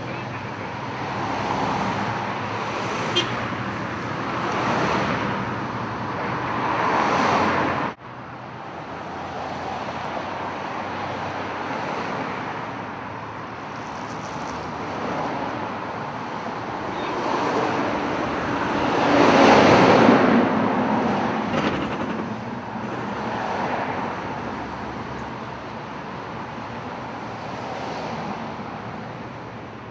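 Road traffic: cars passing one after another, each swelling up and fading away over a few seconds, the loudest about two-thirds of the way through.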